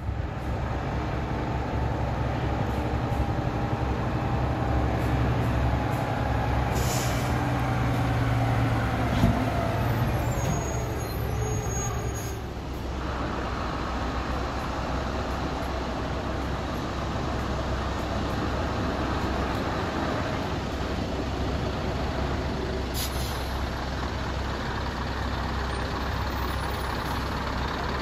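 Heavy diesel log trucks with laden trailers running and pulling slowly past, engines droning steadily, with short hisses of air brakes twice.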